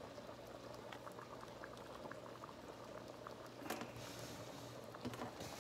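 A pot of thick arroz caldo (chicken and sticky-rice porridge) boiling, its bubbles popping with many small soft blips. There is a brief knock about two-thirds of the way through.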